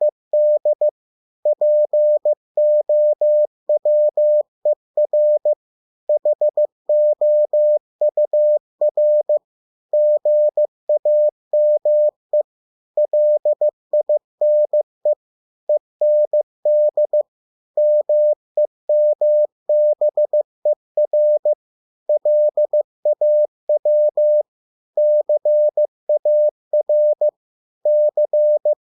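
Morse code (CW) at 15 words per minute: a single steady beep tone keyed on and off in dots and dashes, sending English words, each group of characters separated by a short pause.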